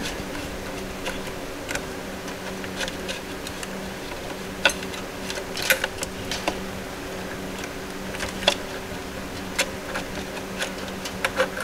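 Scattered light metallic clicks and taps from horn brackets and a mounting bolt being handled and lined up, over a steady low hum.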